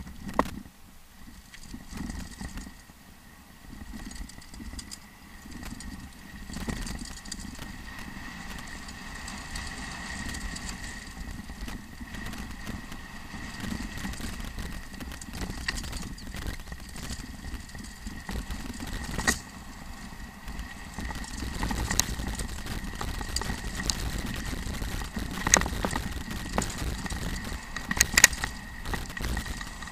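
Mountain bike rattling and clattering over a stony dirt trail on a fast descent, with wind rumbling on the camera microphone. Sharp knocks from rocks and bumps come more often and louder in the second half.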